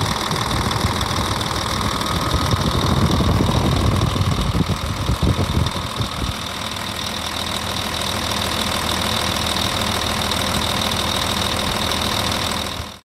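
Scania diesel engine of a Hyundai HX520L excavator idling, heard close up in the open engine bay with the oil filler cap off. It runs steadily, with more low rumble in the first half, and cuts off suddenly near the end.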